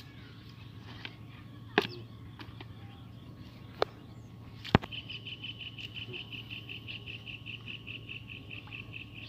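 A few sharp knocks, the loudest about halfway through. Then an animal call: a rapid, even series of high notes at one pitch, about five a second, through the second half.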